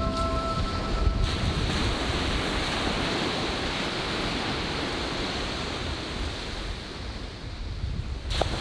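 Waves breaking and washing up on a sandy beach, a steady rushing noise, with wind buffeting the microphone. The last held notes of a music track fade out about a second in.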